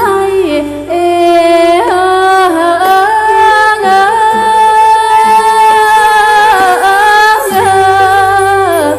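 Northeastern Thai chariang folk song accompanying the dance: a singer holds long, wavering melodic lines that slide between notes, over a steady low drone.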